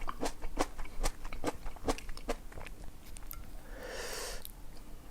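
Close-up crunchy chewing and biting of an air-fried tortilla pizza, with many sharp crisp crunches. A soft rushing sound, like a breath, comes about four seconds in.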